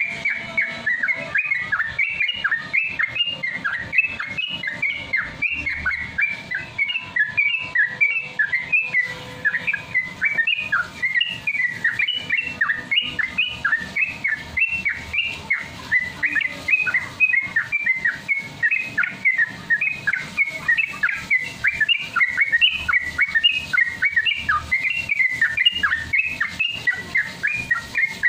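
Yellow-vented bulbul (trucukan) singing a fast, unbroken run of short whistled notes, about four a second: the rapid 'ropel' song that bird-keepers train for.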